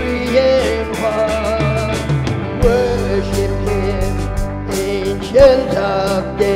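Live worship band music: electric bass and a steady beat under singing held on long, wavering notes.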